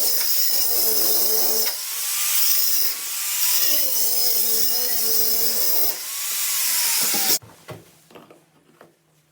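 An electric power tool running under load, its motor pitch dipping and recovering as it works, then switched off suddenly about seven seconds in. Faint scraping and light knocks follow.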